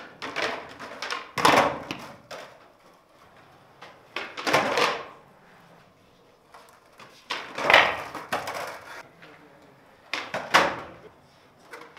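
Skateboards doing flatground tricks on a hard indoor floor: sharp tail or nose pops and loud clacks as boards and wheels land. These come in about five bursts spread a few seconds apart, with wheels rolling between them.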